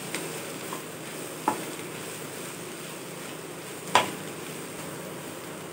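Wooden spatula stirring grated boiled raw banana and onion frying in oil in a non-stick pan, over a steady low sizzle. A few sharp knocks of the spatula against the pan stand out, the loudest about a second and a half in and about four seconds in.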